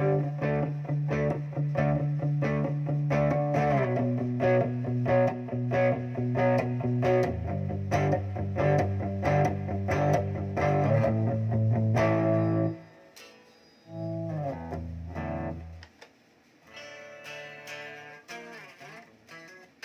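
Electric guitar played through a Zoom G1Xon multi-effects pedal: a fast riff of evenly picked notes over held low notes. About 13 seconds in it breaks off, and a few quieter, sparser notes follow.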